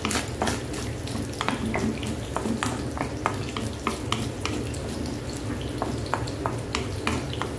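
Scrambled egg and chopped red onion frying in oil in a wok, stirred with a wooden spoon: a light sizzle with frequent irregular knocks and scrapes of the spoon against the pan.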